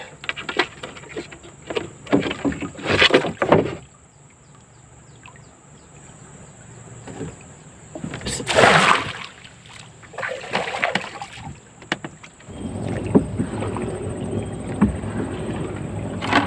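Water splashing and knocking from a small boat as bubu fish traps are handled, with the loudest splash about eight and a half seconds in. About twelve and a half seconds in a steady low noise sets in and continues.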